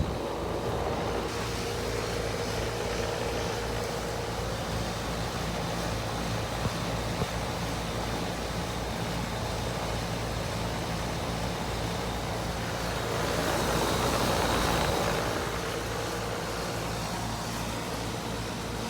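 2004 Tempstar central air conditioner's outdoor condensing unit running steadily: a low compressor hum under the even rush of the condenser fan. A broader swell of noise rises and fades about two-thirds of the way through.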